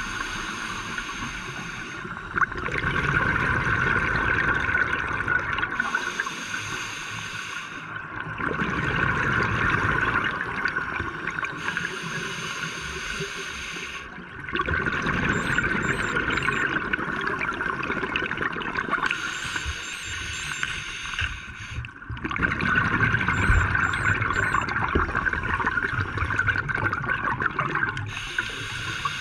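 Scuba diver's breathing through a regulator underwater: breaths alternate in a slow cycle about every six seconds, with gurgling bubbles on the exhales.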